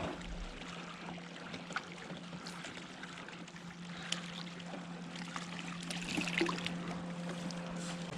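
Small fishing boat sitting on the water: a steady low hum, with faint water sounds and a few light clicks.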